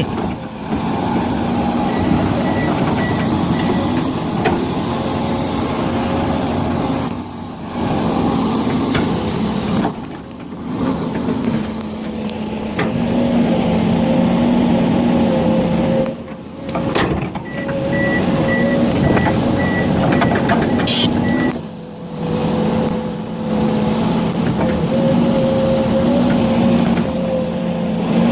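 Heavy diesel machinery engine running steadily, with an electronic backup alarm beeping in two stretches, a couple of seconds in and again past the middle.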